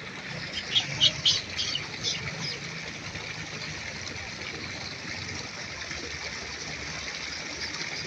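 Birds chirping, five or six short high chirps in quick succession about a second in, over a steady rushing background noise.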